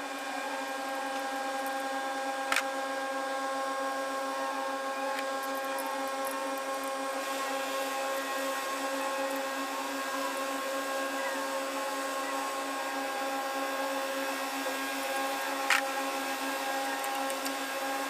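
A steady machine hum made of several even, unchanging tones, like a running motor, with two sharp clicks: one about two and a half seconds in and one near the end.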